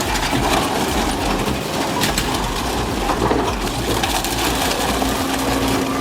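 ARJES VZ950E metal shredder, driven by twin 250 kW electric motors, grinding through car bodies: a continuous dense crunching and cracking of tearing sheet metal over a low rumble.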